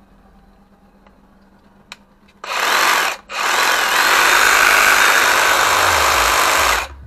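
Milwaukee M18 Fuel cordless reciprocating saw (Sawzall) run free in the hand, not cutting: a short burst about two and a half seconds in, then a longer run of about three and a half seconds that stops suddenly. Its old grease has not yet been cleaned out, and it is running pretty strong.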